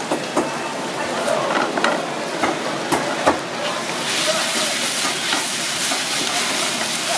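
Wooden spatula scraping and tapping in a pan as wet seaweed is stir-fried in oil, with a steady sizzle. The taps fall in the first few seconds, and the sizzle grows brighter from about four seconds in.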